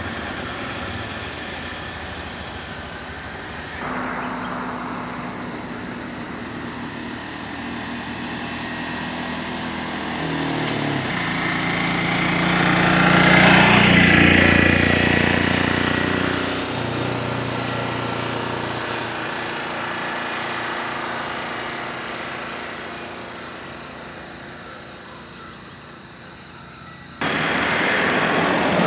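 Motor vehicle engines running on a road. About halfway through one vehicle passes close, its engine growing loud and then fading away. Near the end the sound jumps suddenly to louder engine noise.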